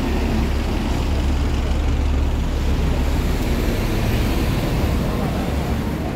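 Steady street traffic noise from passing cars and vans, with a constant low rumble.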